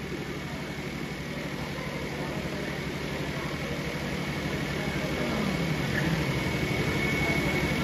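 A steady low mechanical hum with a fast, even flutter, like a motor or engine running, growing slightly louder. A faint falling tone sounds about five seconds in, and a thin high tone comes in near the end.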